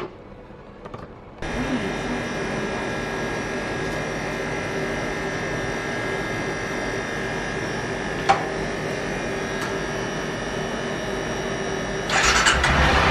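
Honda CRF 250L single-cylinder engine running at a steady idle after its clogged fuel filter and pump were cleaned, showing the bike runs again. It comes in abruptly about a second and a half in, after a few faint clicks. Near the end a louder sound comes in over it.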